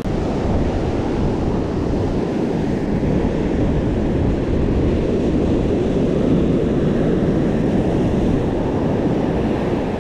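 Steady rush of ocean surf breaking and washing up a sandy beach, with wind buffeting the microphone.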